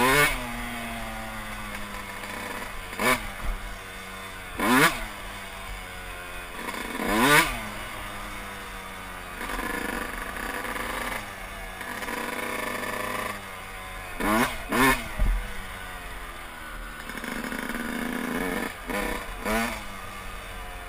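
Yamaha YZ125's two-stroke single-cylinder engine under way at low speed. The throttle is blipped repeatedly, each time the revs shooting up and dropping straight back, with lower running in between.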